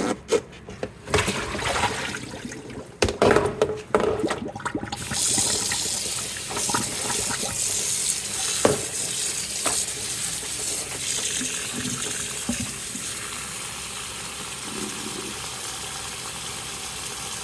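Water splashing and sloshing as a cloth flag is rinsed by hand in a basin of water, then, about five seconds in, a tap running steadily.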